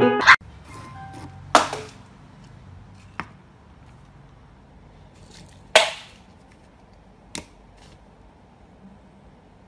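About five sharp clacks of small plastic objects, a container and a lighter, being knocked over by a cat and hitting a wooden floor, the two loudest about a second and a half in and just under six seconds in.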